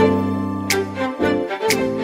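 Background pop music in an instrumental break, with sustained notes over a beat of about two hits a second.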